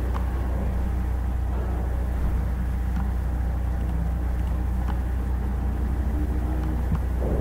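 Steady low hum with constant background noise, and a few faint clicks.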